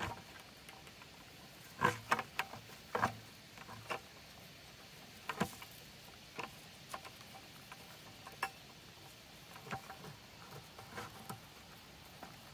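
Baling twine being pulled and knotted around a white plastic 5-gallon bucket: irregular light rustles and clicks of twine and plastic being handled, loudest in a cluster about two to three seconds in.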